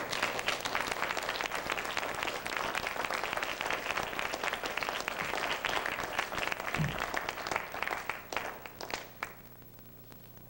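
Audience applause in a theatre: many people clapping at once, thinning out and dying away near the end.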